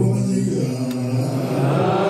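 Men's voices chanting in long, low held notes that shift pitch slowly: an Islamic devotional chant.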